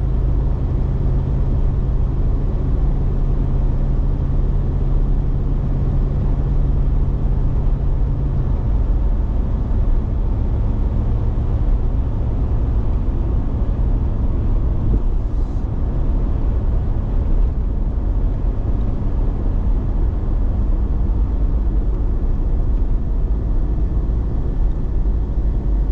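Steady road noise of a car being driven on a highway, heard from inside the cabin: a low rumble of engine and tyres. The low drone shifts down about eight seconds in.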